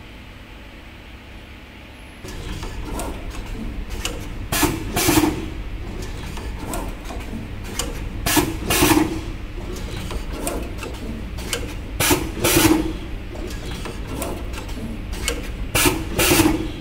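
Automatic wire cut, strip and tinning machine running its cycle, starting about two seconds in: a steady mechanical hum with a loud double clack-and-hiss about every four seconds and lighter ticks between.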